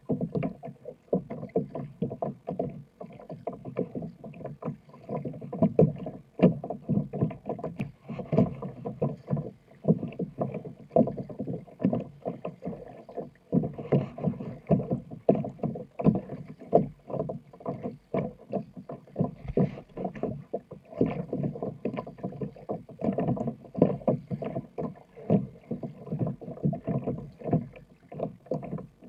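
Kayak paddling on choppy water: the paddle blades dipping and the water splashing and slapping against the plastic hull of a sit-on-top kayak, in a steady run of short, irregular splashes and knocks.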